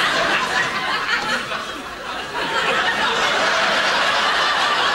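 Studio audience laughing, a sustained swell of laughter that eases a little about halfway through and then rises again.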